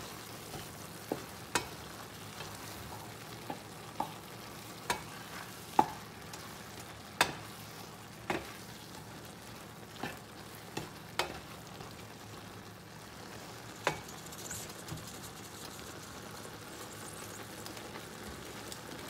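Wooden spoon stirring a simmering mix of fermented romaine lettuce, tomato and egg in a stainless steel pot, knocking against the pot about a dozen times at uneven intervals, over the steady hiss of the simmering food. The knocks stop about 14 seconds in, leaving only the hiss.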